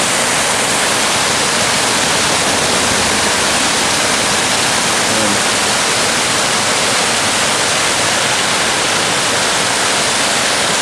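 Water pouring over a stone millpond spillway: a steady, loud rush.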